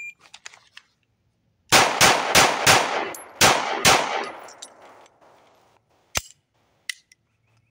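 A shot timer beeps, then an HK P2000 9mm pistol fires six shots: four quick shots about a third of a second apart, a short pause, then two more, each ringing out after it. This is the four-to-the-body, two-to-the-head pattern of a split bill drill. Two sharp clicks follow.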